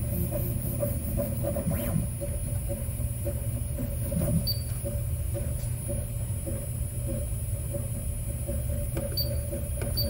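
Steady high-pitched whine from a homemade coil-driver circuit as its MOSFET switches the transmit coil 2,600 times a second. Under it, a 3D printer's motors whir unevenly.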